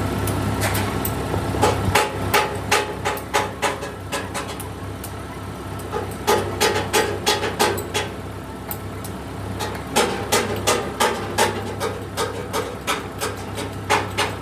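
Hammer blows struck in quick runs of about three a second, with short pauses between the runs, over a steady low hum.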